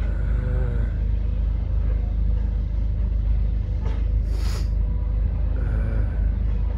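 Caterpillar tracked excavator's diesel engine running as it works, heard as a steady low rumble, with a brief hiss about four and a half seconds in.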